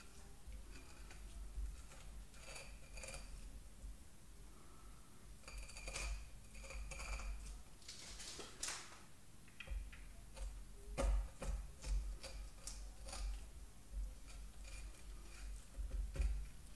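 Filleting knife cutting and scraping along the bones of a skinned Dover sole, with scattered soft clicks and ticks as the blade catches on the bones and meets the wooden cutting board.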